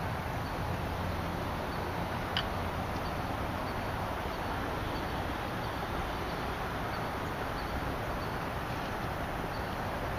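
Steady outdoor background hiss, with a faint high chirp recurring about every half second and a single click about two seconds in.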